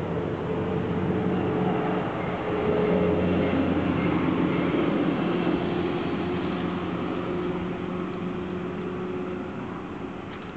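A motor vehicle's engine running steadily, louder a few seconds in and then slowly fading away.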